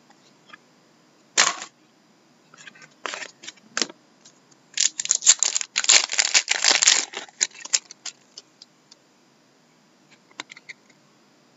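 A foil trading-card pack wrapper is torn open and crumpled: a dense crinkling run from about five to seven and a half seconds in. Short rustles and clicks of cards being handled come before and after it.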